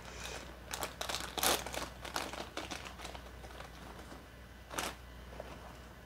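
Thin clear plastic packaging bag crinkling as it is handled, with several crinkles over the first couple of seconds, then quieter, with one more crinkle near the end.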